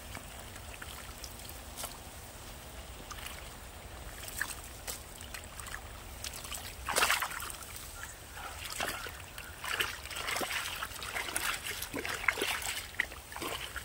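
Muddy water trickling into a ditch through a freshly cut mud bund, the flow just started. From about seven seconds in, hands splash and slosh in the muddy water, scooping at the ditch bottom.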